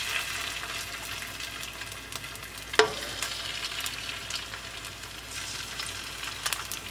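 Shrimp sizzling and crackling in hot olive oil in a frying pan as they are added one by one, with a sharp knock about three seconds in.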